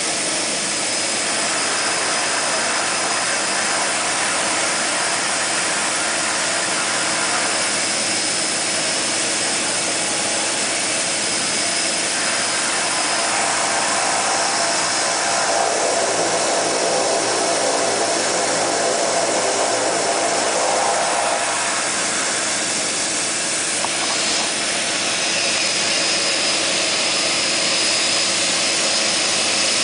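Twin Otter floatplane's turboprop engine and propeller running steadily, heard from inside the cabin, with a thin high whine over the drone while the plane is still on the water.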